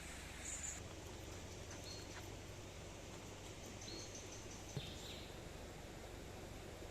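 Faint outdoor ambience: a steady low hiss with a few short, high bird chirps and a single light click about five seconds in.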